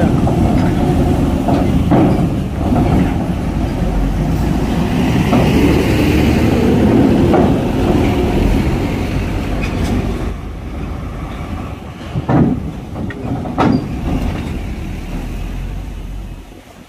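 Heavy vehicles, a coach and a container truck, driving off a ferry across the steel loading ramp close by: loud diesel engine and tyre rumble with rattling of the steel deck plates. Two sharp metal clanks come about twelve and thirteen and a half seconds in.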